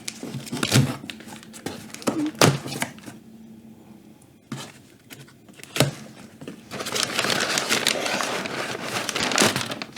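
A package being opened by hand with a knife: scattered knocks and scrapes of cutting into it, then, from about seven seconds in, a few seconds of steady crinkling and rustling of packing material.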